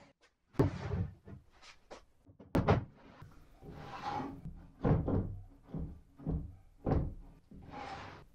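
A plywood crosscut sled being handled on a table saw with its motor off: a string of hollow wooden knocks and thunks. A few longer rubbing slides come in the middle and again near the end.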